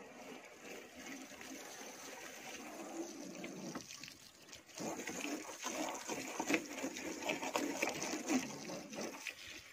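Garden hose spraying water onto a car's body and windows, a steady hiss with irregular splashing that grows louder about halfway through.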